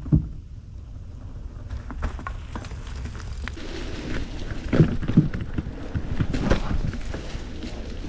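Polygon D6 mountain bike ridden over rough trail: a steady low rumble of tyres and wind, with sharp knocks and rattles from the bike as it hits bumps, loudest about five seconds in and again at six and a half seconds.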